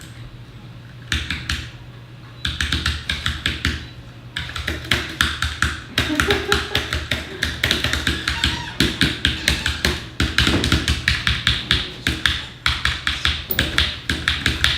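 Mechanical keyboard being typed on fast and hard: rapid clattering key clicks starting about a second in, stopping briefly twice, then running on without pause.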